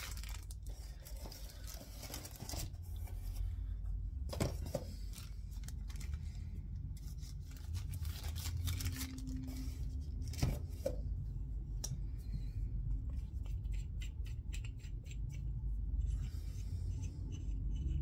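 Workbench handling noise: scattered clicks, scrapes and rustles as parts are wiped down and small tools and lapping-kit pieces are picked up and set aside, over a steady low hum.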